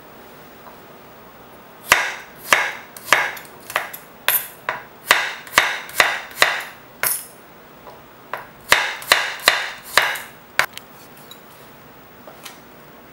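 White ceramic knife slicing garlic cloves on a wooden cutting board, the blade knocking on the board about twice a second, with a short pause a little past halfway.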